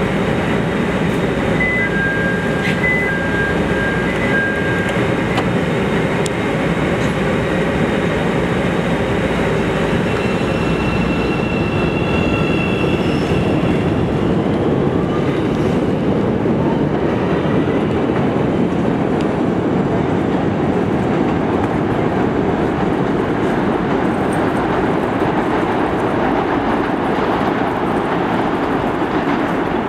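A CTA 3200-series "L" train pulls out of an elevated station. A brief chime sounds near the start, a faint rising whine follows as it gathers speed, and the wheels keep up a loud, steady rolling and clatter on the rails as the cars pass.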